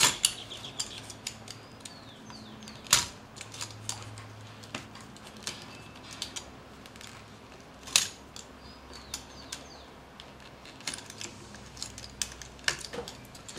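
Utility knife cutting a notch into thick, water-softened leather: scattered small clicks and scrapes of the blade, with a few sharper knocks near the start, about three seconds in and about eight seconds in.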